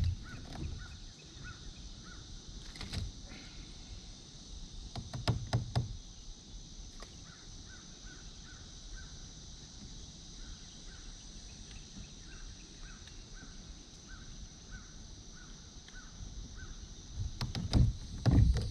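A bird calling in long runs of short, evenly spaced notes, about three a second, over a steady high hiss. A few dull knocks, the loudest sounds, come about three and five seconds in and again near the end.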